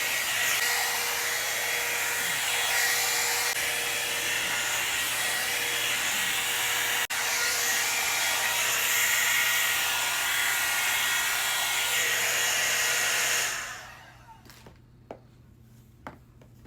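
Blow dryer brush (hot air styling brush) running steadily: a motor and fan whir with a rush of air. It breaks for an instant about seven seconds in and shuts off about fourteen seconds in, followed by a few light clicks.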